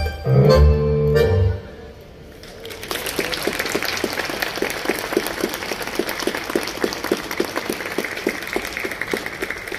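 A tango ensemble with violin, keyboard and double bass plays its closing notes, which stop about a second and a half in. From about two and a half seconds in, an audience applauds, the claps falling into a regular beat of about four a second.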